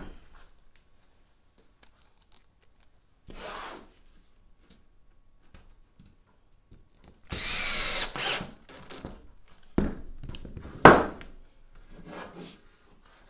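Makita cordless drill/driver running for about a second in the middle, driving a drywall screw into laminated plywood. A few seconds later comes a sharp knock, the loudest sound, among smaller clicks and handling noises.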